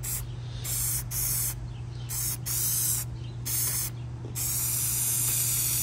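Aerosol can of 3M headliner spray adhesive hissing in a string of short spray bursts, then one longer spray near the end, laying a web of glue over the headliner foam.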